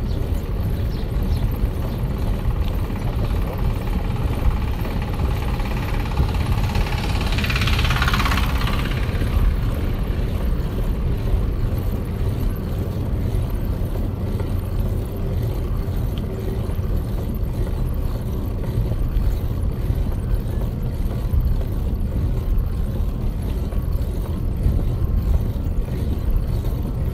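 Wind buffeting a moving microphone, with road rumble, as a steady low rumble. A brief louder hiss comes about eight seconds in.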